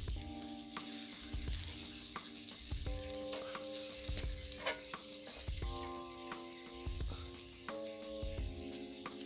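Chicken sizzling on a grid over charcoal, a steady hiss with scattered crackles and clicks, under background music of held chords that change every couple of seconds over a low beat.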